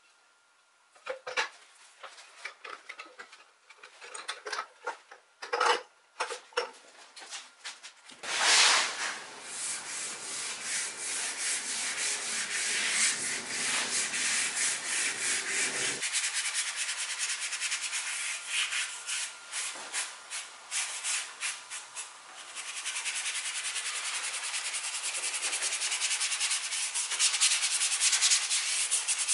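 Bristle paintbrush scrubbed rapidly back and forth over a wooden mirror frame, working in a liquid finish: a steady, scratchy rubbing that takes over about eight seconds in and gets louder in the last few seconds. Before it, scattered light taps and clicks.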